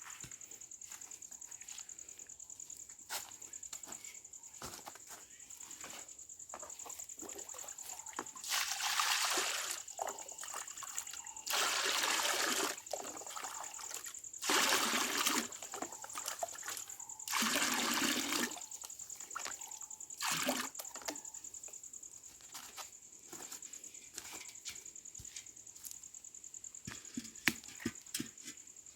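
Water splashing in four short bursts of about a second each, among light clicks and knocks, over a steady high-pitched whine.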